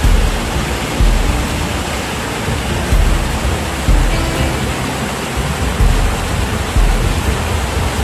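Steady rush of a small waterfall pouring onto rocks, under background music whose low beat thumps about once a second.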